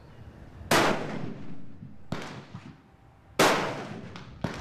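Rifle shots from sighting in a hunting rifle: four sharp reports, the first and third much louder, each trailing off in a short echo.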